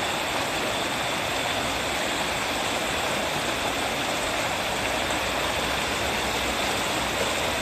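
Steady rushing of a creek's flowing water, with a faint thin high tone running underneath.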